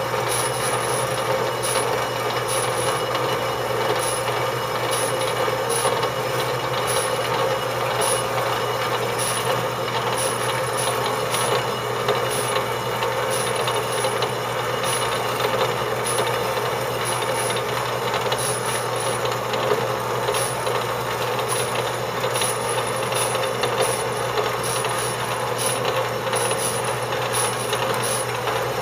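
Horizontal metal bandsaw running and cutting through a metal tube, both walls at once, fed down by the weight of its arm alone. The blade teeth rasp steadily over the motor's hum, with a fast, irregular ticking.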